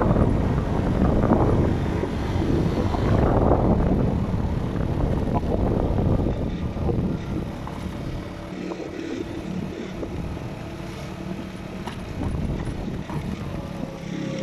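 Motocross bike engine running while riding, with wind buffeting the microphone. After about seven seconds the wind noise eases and the engine's steady note comes through more plainly.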